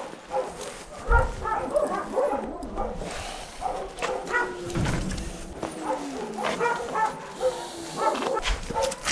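A dog held on a catch pole yelps and whines again and again in short calls, with a few drawn-out falling whines around the middle: the distress of a frightened dog being restrained. A few dull thumps from handling the pole come in between.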